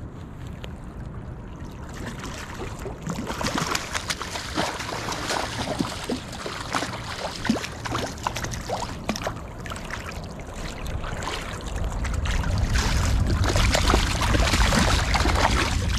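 River water running along the bank, with scattered clicks and crackles close to the microphone throughout. A low rumble grows louder about twelve seconds in.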